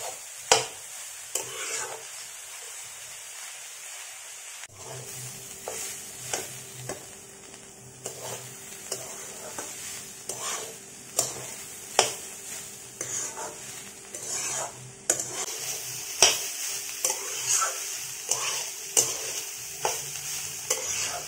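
Spatula scraping and knocking against a kadai in irregular strokes as chopped banana stem is stir-fried, with a steady sizzle of oil underneath: the dry-frying stage after the cooking water has boiled off, browning the thor. A faint low hum joins about five seconds in.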